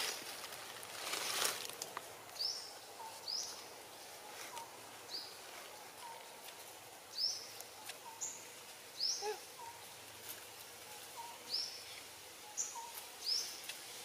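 A bird calling over and over outdoors: short, high notes that fall in pitch, about one a second, with fainter, lower short notes between them. A brief burst of noise comes about a second and a half in.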